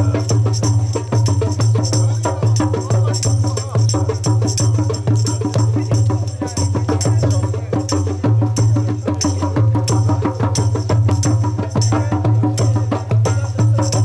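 Music with fast, dense percussion of rapid strikes over a steady low drone.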